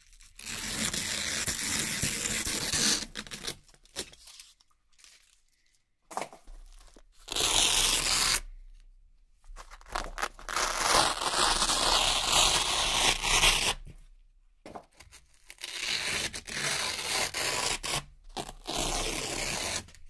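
Velcro hook-and-loop strips being peeled apart by hand in four long crackling rips, with short pauses between them.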